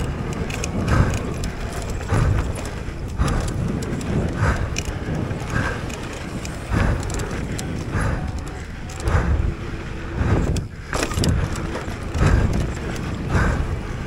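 Mountain bike descending a rough dirt trail at race speed: tyres on dirt, wind on the mic, and the chain and frame rattling and knocking over bumps, with hard breathing swelling about once a second.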